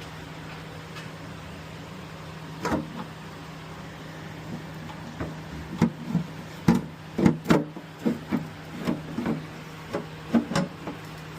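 Metal oil pan of a small-block Chevy being worked loose and wiggled out from under the engine, clanking in irregular knocks. The knocks start about three seconds in and come thick and fast in the second half, over a steady low hum.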